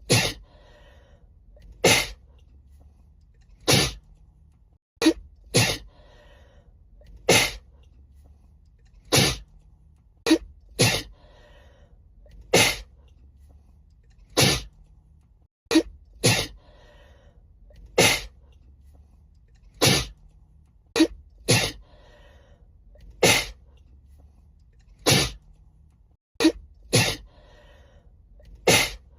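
A woman sneezing over and over: a sharp sneeze about every two seconds, now and then two in quick succession. The same stretch of sneezes repeats about every ten or eleven seconds, as an edited loop.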